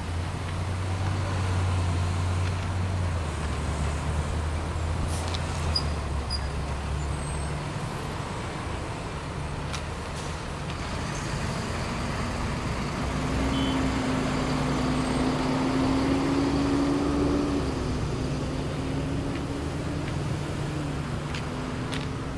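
Slow road traffic: car engines running at low speed, then a large box truck passes close by about halfway through, its engine hum rising slowly and then dropping.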